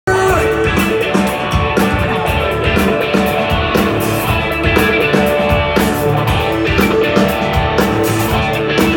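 Live rock band playing an instrumental passage: electric guitar over a drum kit keeping a steady beat, loud and dense.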